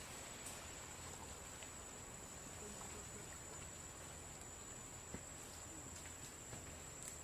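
Faint outdoor forest ambience: a steady high-pitched insect drone, with a few faint ticks.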